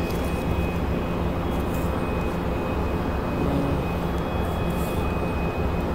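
Steady factory machinery hum and rumble with a faint high, steady whine over it.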